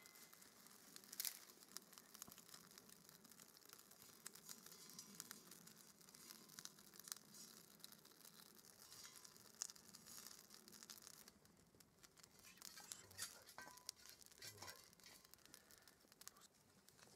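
Small wood fire crackling faintly inside a perforated metal twig stove, with scattered sharp snaps and ticks over a soft hiss.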